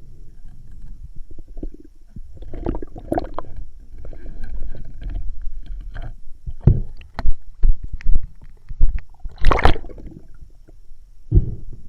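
Water rumbling and gurgling around a camera in the water, with a run of sudden splashes and knocks in the second half, the loudest about two thirds of the way through.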